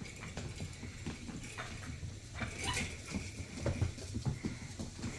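Cane Corso puppies scuffling and playing, their paws pattering in many small, irregular knocks and scrapes, with a sharper scrabble about two and a half seconds in.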